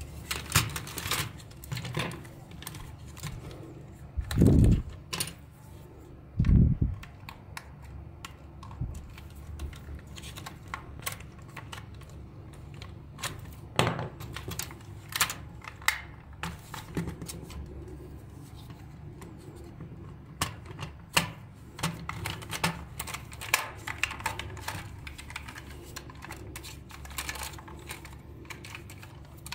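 Hard plastic toy parts clicking and clattering as a children's activity toy is handled and its plastic shell fitted back together, many sharp clicks at an uneven pace. Two dull thumps stand out, about four and a half and six and a half seconds in.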